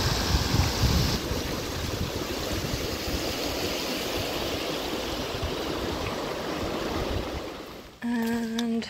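Shallow river rushing over rocks in rapids, a steady rushing noise that dies away near the end.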